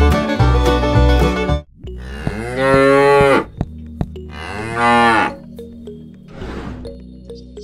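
A cow mooing twice, two long calls that each rise and then fall in pitch. The calls start about two seconds in, after banjo-style music stops.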